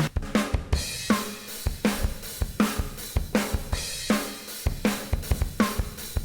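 Programmed drum kit samples playing back a steady mid-tempo groove of kick, snare and hi-hat, a hit about every three-quarters of a second, with a freshly swapped-in snare sample under compression and EQ.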